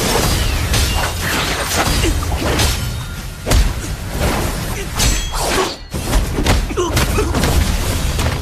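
Layered film fight sound effects: a dense run of hits, crackling magic-energy blasts and whooshes, the heaviest impact about three and a half seconds in, over background score.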